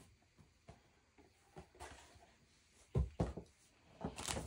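Quiet tabletop handling noises: two dull knocks about three seconds in, then a brief rustle of paper near the end.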